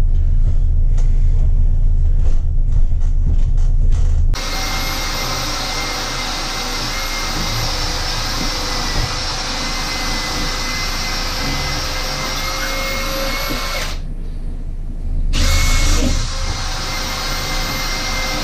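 A low hum for about four seconds. Then an electric drill with a long bit runs steadily with a high whine, boring a pilot hole down through the floor under the tub's drain opening. It stops near the end and starts again about a second later.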